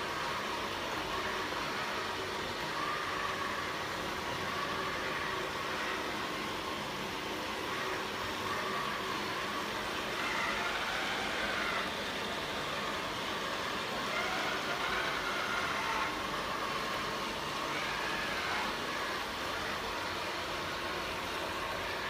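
Ameribot 720 robot vacuum cleaner running as it sweeps up spilled powder on a hard wooden surface: a steady whirr of its suction fan and brushes, with a faint whine that wavers in pitch now and then.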